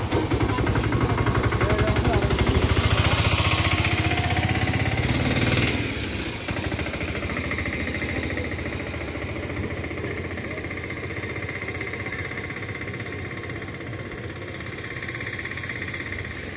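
A small engine running steadily with a rapid pulse, louder for about the first six seconds and then dropping to a lower, even level.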